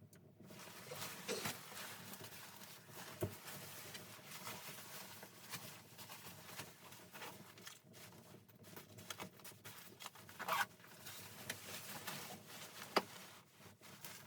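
Irregular rustling and scraping with scattered clicks and knocks, starting about half a second in and cutting off suddenly at the end; the sharpest knock comes near the end.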